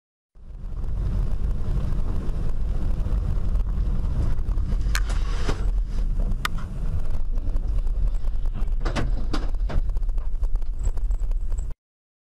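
Dashcam audio of a moving car: a steady low rumble of engine and road noise heard from inside the cabin, with sharp knocks, a few in the middle and three close together later on. The sound cuts in just after the start and cuts off abruptly near the end.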